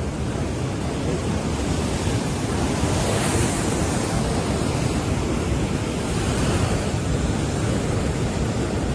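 Rough sea surf breaking, with wind buffeting the microphone in a steady low rumble; a louder rush of surf comes about three seconds in.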